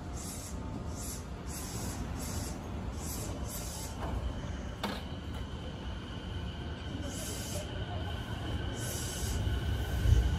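A JR 209 series electric commuter train standing at a platform with its doors open, giving off a steady low rumble with short high hisses that come about twice a second at first and twice more near the end. A sharp click comes about halfway through, a faint steady high tone follows, and the rumble swells near the end.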